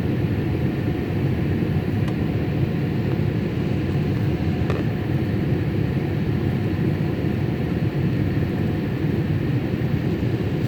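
Steady cabin noise of a Boeing 787 airliner in flight after take-off: an even, low rush of engines and airflow, with two faint clicks.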